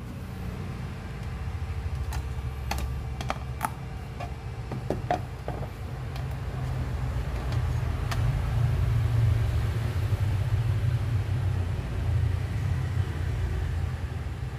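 A steady low hum, with a few light clicks and taps as a hand handles a small 3D-printed plastic part on a 3D printer's glass bed, mostly in the first half and again around eight seconds in.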